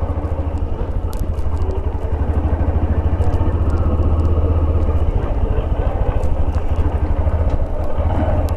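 Motorcycle engine running steadily under load as the bike climbs a hill road, getting a little louder about two seconds in.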